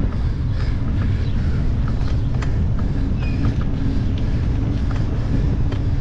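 Steady wind buffeting on the microphone and road rumble from a vehicle moving along a street, with a faint steady hum and a few light clicks.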